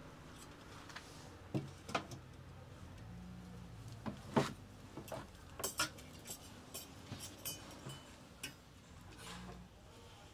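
Scattered clicks and knocks of kitchen utensils: a knife tapping on a wooden cutting board and metal dishware set down and handled on the table. There are a dozen or so irregular sharp taps, the loudest about four seconds in, thinning out near the end.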